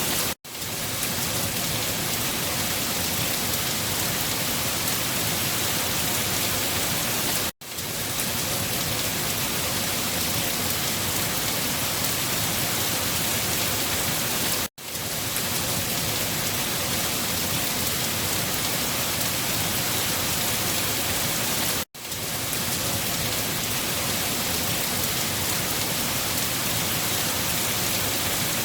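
Steady rain falling on a surface, an even, dense hiss. About every seven seconds it cuts out for a split second and fades back in.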